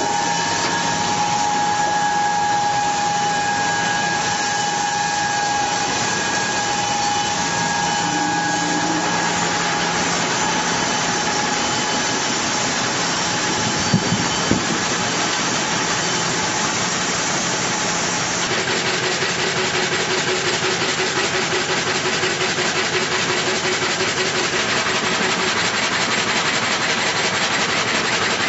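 Altai M450 multi-rip saw running and sawing wood: a steady, loud machine whine and hum whose tone shifts a couple of times, with two short knocks about halfway through.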